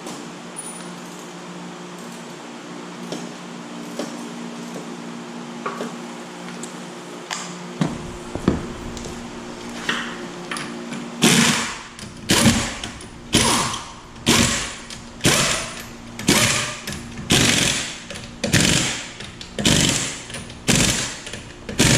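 Impact wrench run in short rattling bursts about once a second, starting about halfway through, as it tightens a car's wheel lug nuts. Before that, a steady low hum with a few light ticks.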